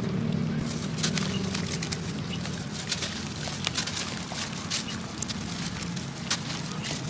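Chunks of sand and cement crumbling: an irregular run of crisp crackles and small sharp cracks.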